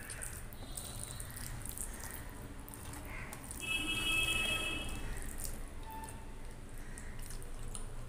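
Fingers mixing rice with kadhi on a steel plate: soft wet squishing and light scraping of fingertips on the metal. A short high-pitched tone comes in near the middle.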